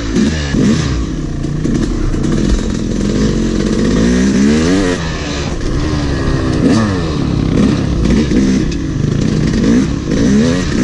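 Yamaha YZ250 two-stroke dirt bike engine, heard close up from the bike, revving up and down in repeated surges as the throttle is worked on a rough trail.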